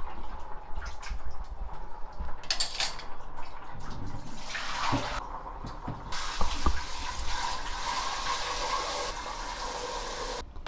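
Running water, a steady rushing that starts about four seconds in and cuts off abruptly near the end, with a few light clicks and drips before it.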